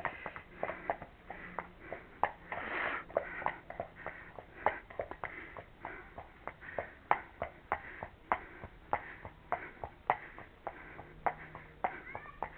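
Hooves of a pony walking on a paved path: a run of sharp, uneven clops, about three a second.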